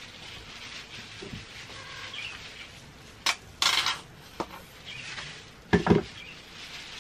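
Plastic hair-dye applicator bottle being handled: a click, a short hiss of the bottle being squeezed, another click, then two quick knocks near the end.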